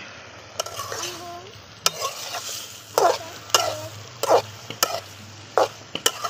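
A long-handled metal spatula scraping and knocking against an aluminium karahi as bottle-gourd vine tips and potatoes are stirred: about eight strokes, some ringing briefly off the pan, over the low sizzle of the cooking vegetables.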